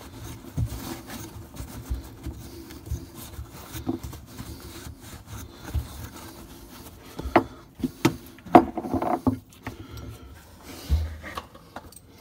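Paper towel rubbing and wiping around a freshly cut copper pipe stub-out, with a handful of sharp clicks and knocks about seven to nine seconds in.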